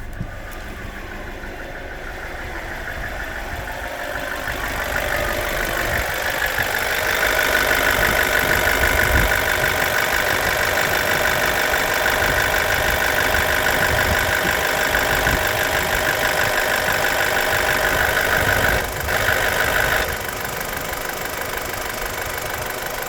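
BMW N45B16A 1.6-litre four-cylinder engine running with its exhaust VANOS activated, with a rattling noise from the exhaust VANOS side. The sound grows louder over the first several seconds, holds steady, then drops back down about twenty seconds in.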